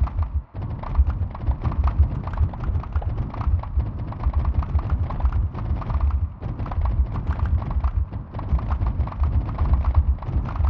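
Sonified earthquake swarm recording played 1000 times faster than real time: a dense, continuous patter of short thuds and ticks, one triggered sample of seismic waveform for each tremor, over deep low thumps. Each hit's pitch marks the depth of the tremor, and its loudness and length mark its magnitude.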